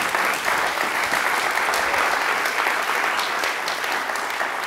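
Audience applauding, many hands clapping together in a dense, steady patter.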